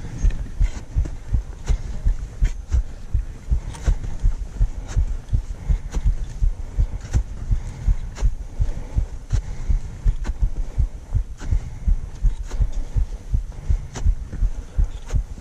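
A mountaineer's steady walking on the ascent: boots striking snow as low thuds, about two to three a second, with sharper ticks roughly once a second.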